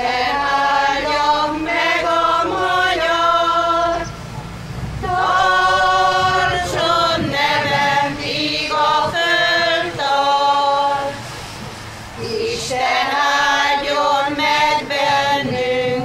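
Small choir of mostly women singing unaccompanied, in three sung phrases with short breaks about four and eleven seconds in.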